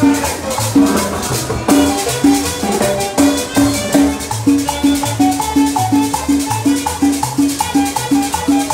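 Live cumbia music played loud by a band, with a steady, evenly repeating beat and bass line and fast, even percussion strokes on top.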